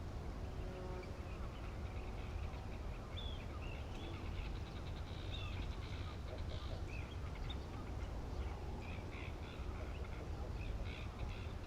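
Many short, high bird calls, sparse at first and growing busier after a few seconds, over a steady low rumble.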